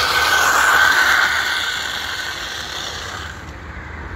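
A bicycle's rear tyre skidding sideways across asphalt in a sliding drift: a long scraping hiss, loudest in the first second, that fades and stops about three seconds in.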